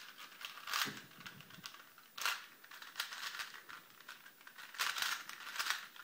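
4x4 Rubik's cube being turned quickly by hand, its plastic layers clicking and clacking in irregular bursts during the final-layer permutation (PLL) that finishes the solve.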